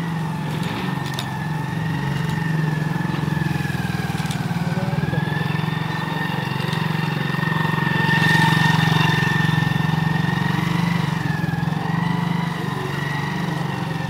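Motorcycle engine running at low speed as the bike is ridden slowly through tight turns, loudest about eight seconds in as it passes close. A thin high whine wavers in pitch over it.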